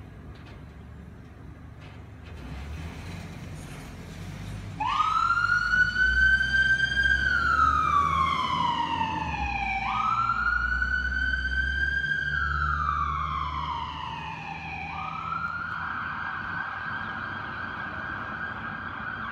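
Ford E-350 ambulance pulling away with its engine running. About five seconds in, its siren starts: two wails that each rise quickly and fall slowly, then a steady high tone for the last few seconds.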